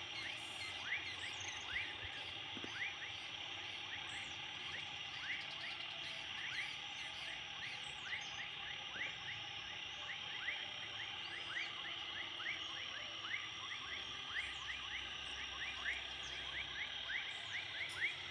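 Evening chorus of frogs and insects: a steady high-pitched drone with a short rising chirp repeated about twice a second.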